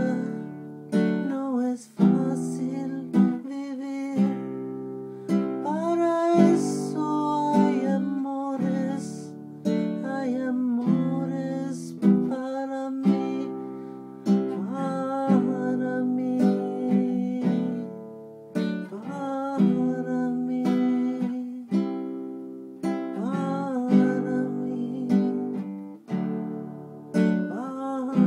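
Acoustic guitar strummed in a run of chords, each strum ringing on before the next.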